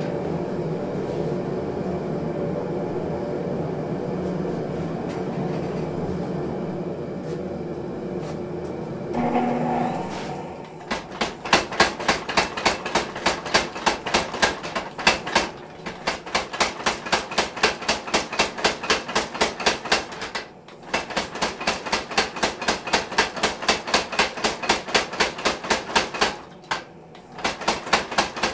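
A forge runs with a steady rushing noise. From about ten seconds in, a mechanical power hammer pounds a glowing steel bar in fast, even blows, about four a second, stopping briefly twice.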